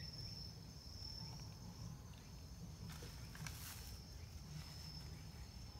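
Faint, steady high-pitched trill of an insect, with a low rumble beneath.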